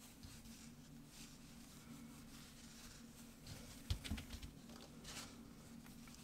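Faint rustling of bulky yarn and a crochet hook being worked through loop stitches, with a short cluster of soft knocks and thumps about four seconds in as the work is handled. A faint steady low hum underlies it.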